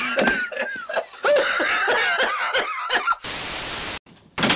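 Wordless yelling and wailing voices during a tussle. About three seconds in, they give way to a flat burst of static-like hiss lasting under a second, then a brief noise near the end.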